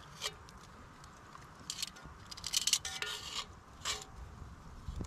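Metal tongs scraping the inside of a cast iron Dutch oven in a handful of short strokes, busiest in the middle, as greasy leftovers are scraped out into a plastic tub.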